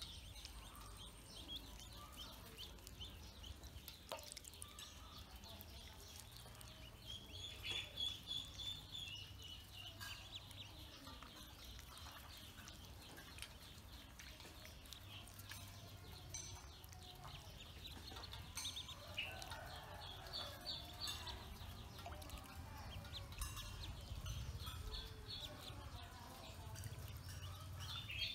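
A brood of domestic ducklings peeping, with rapid runs of short high chirps that rise in a few louder bursts.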